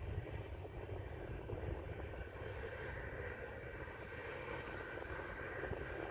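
Steady low rumble of a freight train running away into the distance.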